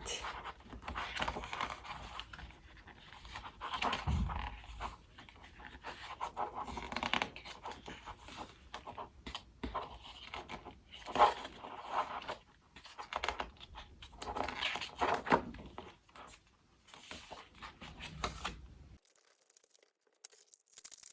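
Paper rustling as the pages of a small printed photo brochure are turned and handled, in irregular swishes, with a short quiet stretch near the end.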